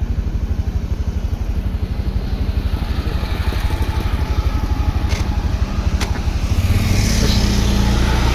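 A bus engine running nearby with a rapid low throb, growing louder and steadier about seven seconds in as it draws closer. Two brief sharp clicks come around the middle.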